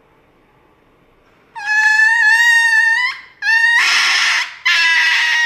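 Small white dog screaming in long, high-pitched cries as it is given an injection. The cries start about a second and a half in, three in a row, the later two harsher and more ragged.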